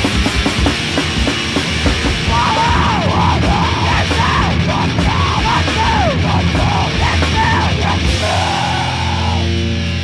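Loud, distorted noisy rock music with pounding drums and guitar, and a wavering high-pitched line over the middle. Near the end it thins out to held guitar notes.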